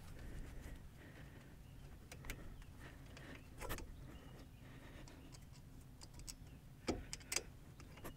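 Faint, scattered metallic clicks and taps from a front brake caliper and its guide pin bolts being handled and worked. The bolt is not catching its threads because the caliper guide pin is not lined up in the caliper bracket.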